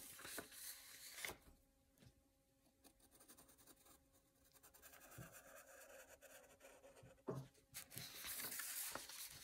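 Faint scratching of a wooden graphite pencil drawing a curve on a sheet of paper, with a soft knock a little past seven seconds in.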